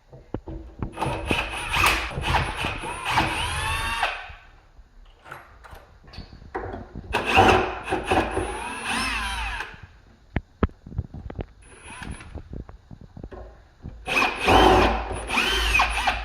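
Power drill-driver running in three bursts, its motor whine rising and falling in pitch, backing out the screws of an old door lock to take it off the door. Small clicks and knocks of metal parts between the runs.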